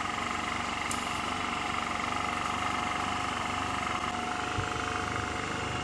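Respironics EverGo portable oxygen concentrator running with its case off: the brushless-motor three-piston compressor and cooling fan give a steady hum with a high whine.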